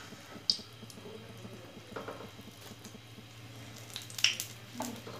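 A metal ladle stirring thick simmering karhi in a wok, with sharp clinks against the pan about half a second in and again about four seconds in, over a faint bubbling.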